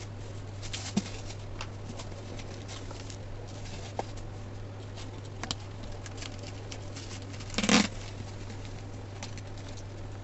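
A courier parcel being unpacked by hand: scattered small clicks, scrapes and rustles of packaging, with one louder rustle or rip about three quarters of the way through, over a steady low hum.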